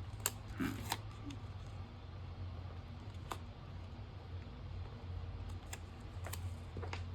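A few scattered light clicks and taps from hands handling a paper planner and sticker sheets, over a steady low hum.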